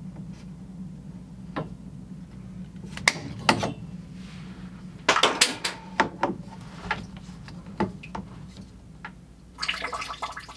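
Plumbing being test-fitted overhead: scattered sharp clicks and knocks as a water line is handled against its brass fittings, with a cluster about halfway through, over a steady low hum.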